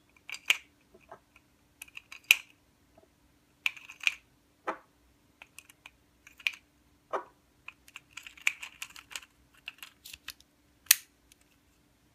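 Irregular small clicks and taps as BB shell casings for a Dan Wesson CO2 revolver are pushed one by one into a six-round speed loader. The sharpest click comes near the end.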